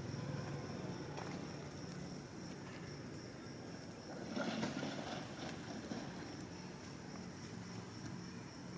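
Outdoor ambience: a steady high insect drone over a low hum, with a brief rustling scuffle about four and a half seconds in.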